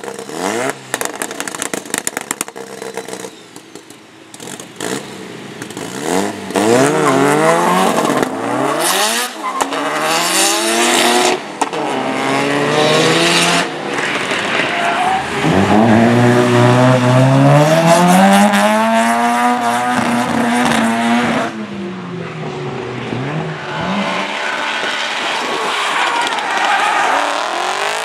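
Drift car engines revving hard, pitch climbing and dropping again and again, with one long rising run in the middle, over steady tyre squeal. A quick run of sharp pops comes in the first few seconds.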